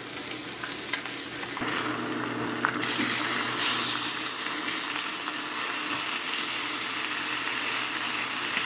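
Strips of hot-smoked bacon sizzling steadily in a black steel frying pan, frying in their own rendered fat with no added oil. The sizzle gets louder about three seconds in.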